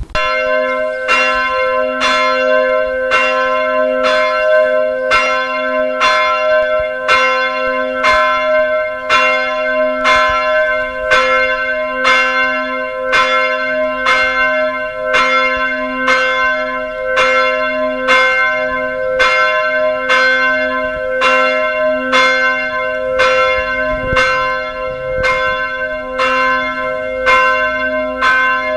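Bronze Eijsbouts church bell cast in 1948 (770 mm across, 290 kg, tuned to C), swung and rung, its clapper striking about once a second. A steady low hum carries on between the strokes.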